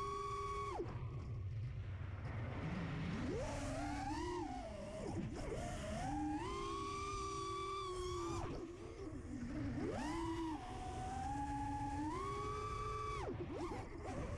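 FPV quadcopter motors whining, the pitch sweeping up with each burst of throttle, holding high for a second or two and dropping again, several times over, with a rush of prop wash and wind underneath.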